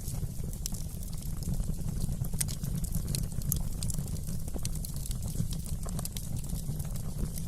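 Wood fire crackling in a fireplace: a steady low rumble from the burning fire under frequent, irregular sharp pops and snaps.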